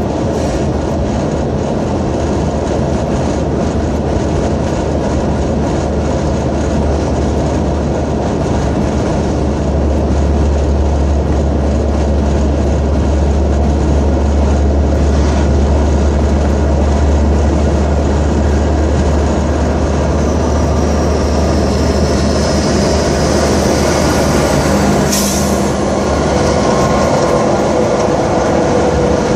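Steady road and engine noise inside a car's cabin at highway speed, a low drone that grows louder for several seconds in the middle. Near the end a tractor-trailer draws alongside, adding a steady hum.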